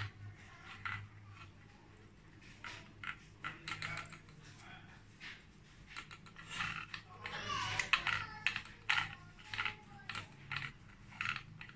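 Irregular light clicks, taps and rustles of wonton wrappers, small glass cups and a metal muffin tray being handled as the wrappers are pressed into cup shapes, busiest in the middle of the stretch.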